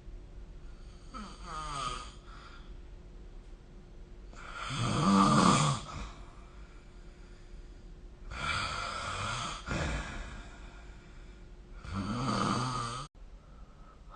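A sleeping person snoring: four rasping snores about every three to four seconds, the second the loudest, the last cut off sharply.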